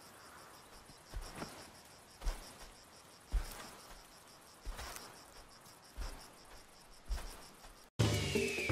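Crickets chirring steadily and faintly, with the soft thuds and crunches of a desert elephant's footfalls in dry grass and brush about once a second. Near the end the sound cuts off abruptly and a music jingle starts.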